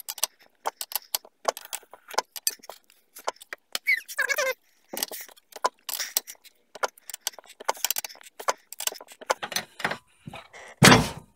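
Metal clicking and squeaking as a wrench cranks a lug nut down on greased washers, drawing a new ARP extended wheel stud into the rear hub, with a brief squeak about four seconds in. Near the end comes a loud clatter: the hammer wedged in to hold the hub falls out.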